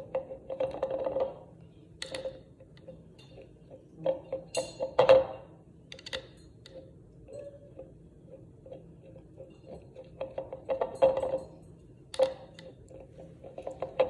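A drinking tumbler spun by an African grey parrot, rattling and whirring on its base against a stone countertop in several short bursts, with scattered sharp clicks between them.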